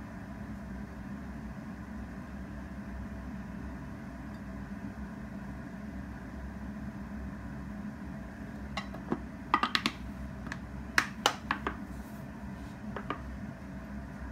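A steady low hum, then in the second half a run of sharp clicks and taps: two close clusters of quick clicks with a few single taps between them.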